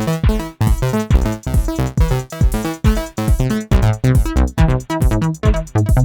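Electronic music from an Akai MPC One and a Korg microKORG synthesizer: a steady beat with deep bass and pitched synth notes, the hits coming quicker and denser in the second half.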